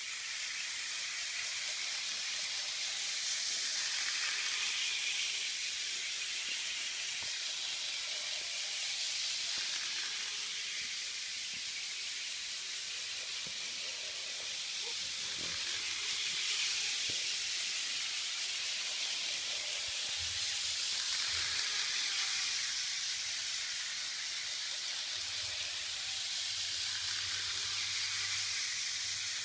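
Kato N-scale model commuter train running on Unitrack: a steady high-pitched hiss of wheels and motor that swells and fades every few seconds as the train comes past on its loop.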